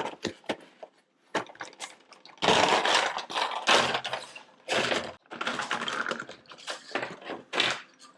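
GoPro mount packaging being opened by hand: a run of small clicks and taps, then longer stretches of rustling from about two and a half seconds in.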